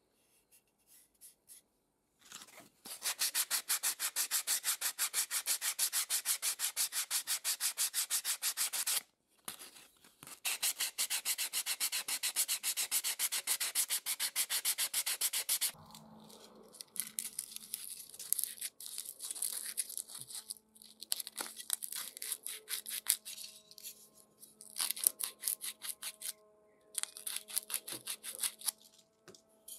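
Sandpaper rubbed briskly back and forth over an old wooden tenon-saw handle, taking off the old varnish and sealant. Two long runs of rapid, even strokes come with a short break between them. After about halfway the sanding turns to shorter, irregular scrubs.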